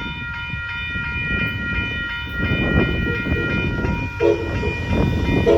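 Amtrak Texas Eagle passenger train passing a road crossing: the crossing bell rings steadily while the train's rumble and wheel noise grow from about halfway through. The locomotive horn sounds a short blast about four seconds in and starts another near the end.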